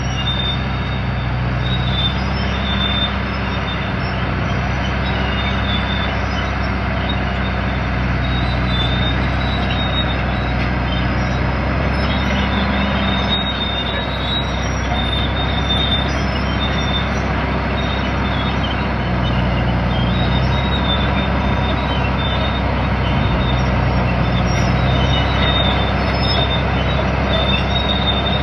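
1956 Caterpillar D9 crawler tractor's diesel engine working steadily under load while pulling a cable scraper, its note rising and easing, with intermittent high metallic squealing.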